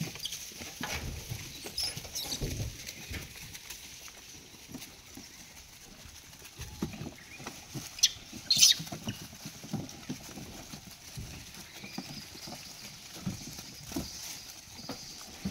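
Macaque monkeys scrambling and feeding on mangoes: scattered soft thumps, rustles and pattering as they move about, with a couple of sharper knocks a little past the middle.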